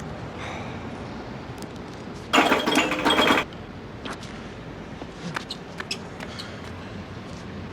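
Dubbed-in cartoon fight sound effects: one loud, harsh burst lasting about a second, starting a little over two seconds in, with scattered light clicks and knocks around it.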